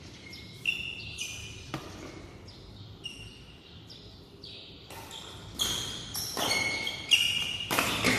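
Badminton doubles rally: sharp clicks of rackets hitting the shuttlecock, mixed with many short high squeaks of court shoes on the floor, getting busier and louder in the last few seconds.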